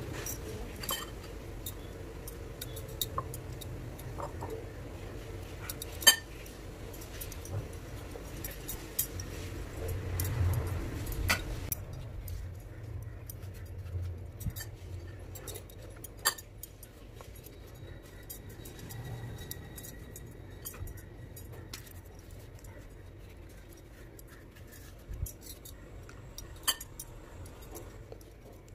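Hands handling samosa pastry sheets and onion stuffing, with soft rustling and scattered light clicks and clinks of a spoon against the dishes; the sharpest click comes about six seconds in. A faint low hum runs underneath.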